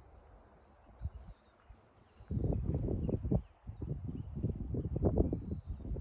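A steady, high, pulsing insect trill, with loud irregular low rumbling and thumps from about two seconds in.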